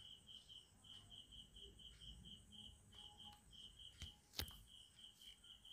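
Near silence with a faint high chirp repeating about four times a second throughout, and two light clicks about four seconds in.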